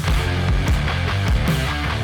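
Background rock music with a steady, fast drum beat.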